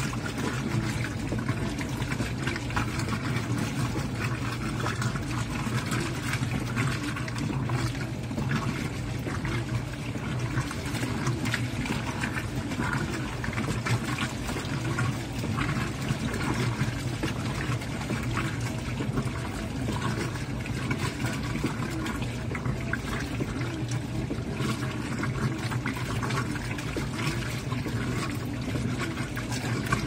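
Brastemp Vantage top-load washing machine washing a load of towels: steady sloshing and splashing of water and laundry in the basket over a low, constant motor hum.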